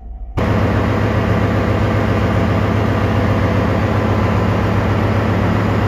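Loud, steady ship's engine-room machinery noise with a strong low hum, cutting in suddenly just after the start.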